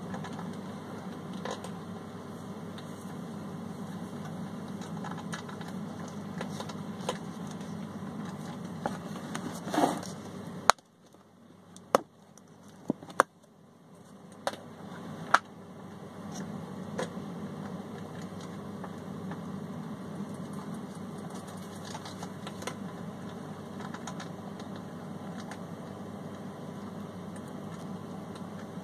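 A steady low background hum with scattered light clicks and taps, typical of hands handling a plastic tub of compost. The hum drops out for a few seconds near the middle, where the sharpest clicks come.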